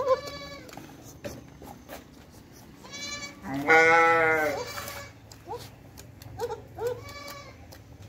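Goats bleating several times: a short call at the start, then one long, loud bleat a little before the middle, followed by a quick run of short calls near the end.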